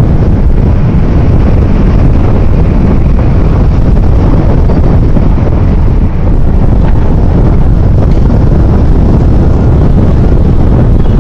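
Loud wind buffeting the microphone, with the rush of heavy storm surf breaking on the shore beneath it.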